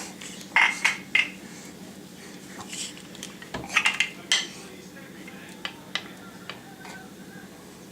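A series of short, sharp clinks and knocks of hard objects, three in quick succession near the start, a louder cluster of three or four in the middle, then a few fainter ones, over a low steady hum.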